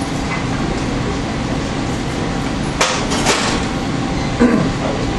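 Steady room noise, with two sharp knocks or clinks close together about halfway through and a softer thump near the end.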